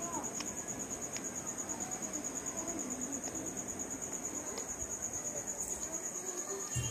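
Cricket chirping: a steady high-pitched trill of rapid, even pulses, with faint distant voices underneath.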